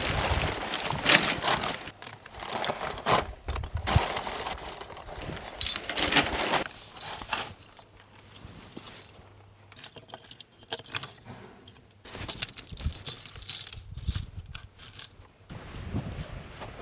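Handling noise: irregular clicks, knocks and scrapes of camping gear being moved and set up, dying down for a few seconds in the middle and then picking up again.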